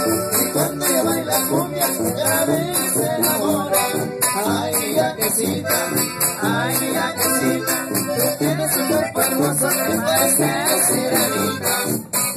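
Live norteño band playing an instrumental cumbia passage: accordion melody over a pulsing tuba bass, with a steady, even percussion beat of shaken or scraped strokes.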